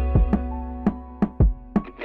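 Background music with a drum beat over sustained pitched notes.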